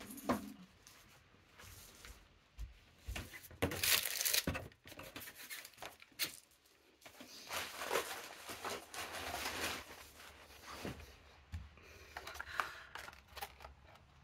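Rummaging while searching for something: scattered rustling and crinkling with light knocks and scrapes of objects being moved, loudest about four seconds in and again around eight to ten seconds.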